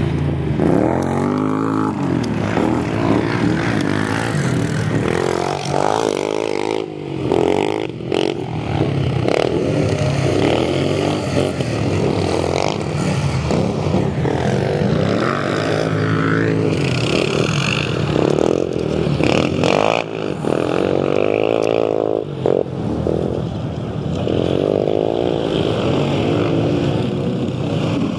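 Utility four-wheel-drive quad bike (ATV) engines racing on a dirt track, revving up and down as the riders open and close the throttle, the pitch rising and falling over and over.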